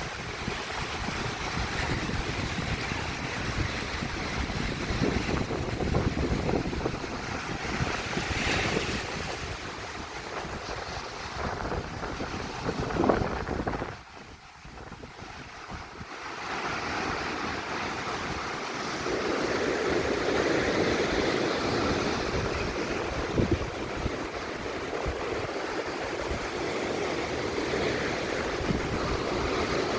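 Ocean surf washing in under strong wind, with gusts buffeting the microphone in a low rumble. The wind briefly eases about halfway through, then picks up again.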